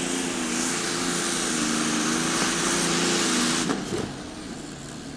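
Modified pulling tractor running at full power under load as it drags the weight sled, a steady engine note with a loud rushing hiss. The sound drops off sharply about three and a half seconds in, leaving a quieter engine note.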